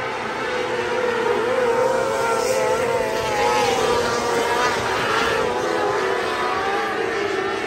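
A pack of 600cc micro sprint cars racing, their high-revving motorcycle engines overlapping and wavering up and down in pitch as they go around the track.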